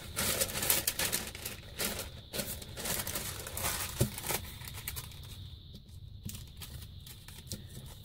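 Paper rustling and crinkling as a brown kraft paper envelope and a sheet of paper are handled, with a knock about four seconds in; the rustling thins out over the last few seconds.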